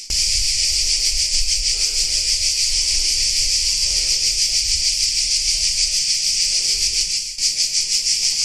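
Chorus of cicadas, a loud, continuous high-pitched rasping buzz with a fast shimmering pulse, dipping briefly about seven seconds in.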